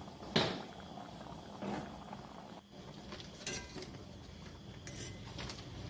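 A metal spatula stirring dal in a steel kadhai, with a sharp knock against the pan about a third of a second in, a lighter one a little later and a few faint clicks.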